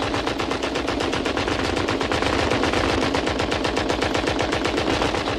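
Two water-cooled heavy machine guns in sustained rapid fire, one continuous stream of shots without a pause.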